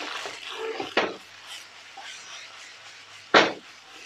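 Chow mein noodles being stirred and tossed with a metal utensil in a non-stick frying pan, with a sharp knock about a second in and a louder clunk a little after three seconds.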